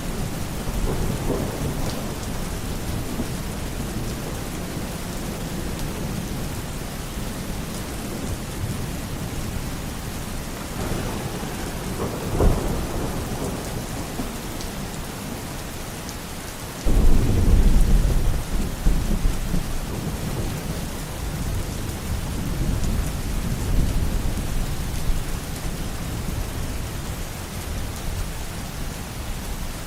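Steady rain falling, with thunder rumbling. A louder, sharper crack of thunder comes about 12 seconds in. A heavy, deep roll of thunder starts suddenly a little past halfway and fades over several seconds.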